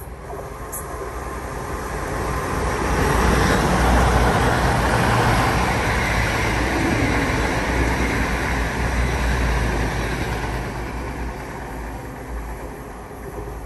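East Midlands Railway Class 222 Meridian diesel multiple unit running through the station at speed, with wheel-on-rail noise and underfloor diesel engines. The sound builds as it approaches, is loudest about four seconds in, holds steady while the carriages go by, then fades as the train recedes.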